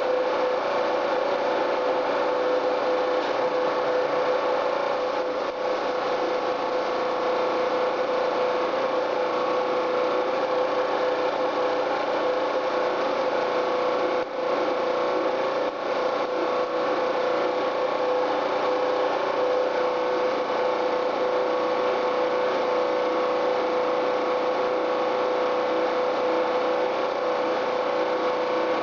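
Electrostatic spray gun spraying paint: a steady hiss of compressed air with a constant humming tone, the trigger eased briefly about 14 seconds in.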